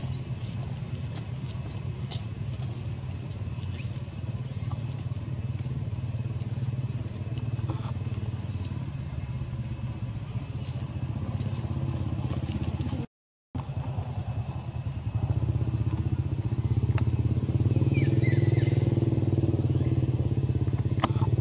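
A steady low engine rumble. It cuts out for a moment about thirteen seconds in, then comes back and grows louder a couple of seconds later.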